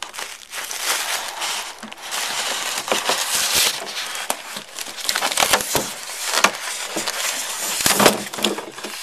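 Cardboard box and plastic packaging being handled and rummaged through: continuous rustling and crinkling with frequent small knocks and clicks.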